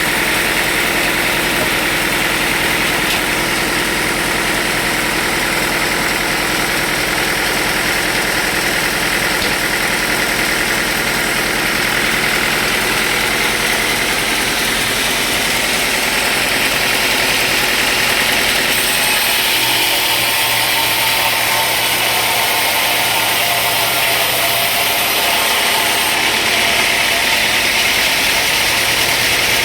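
Sawmill machinery running steadily with an engine-like drone, its tone shifting about two-thirds of the way through.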